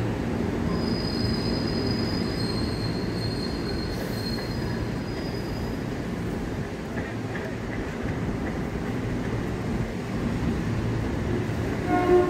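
Electric commuter train rolling past the platform with a steady rumble of wheels on rails. From about a second in until about six seconds, thin high-pitched wheel squeal rises above the rumble. A short, louder pitched sound comes just before the end.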